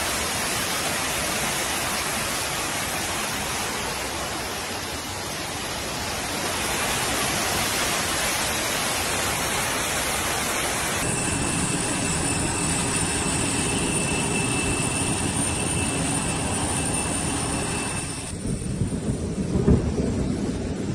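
Floodwater cascading down station stairs and an escalator, a loud steady rushing of water. About eleven seconds in the sound changes and a thin steady tone runs under the rush; near the end it drops to a lower rumble with uneven bumps.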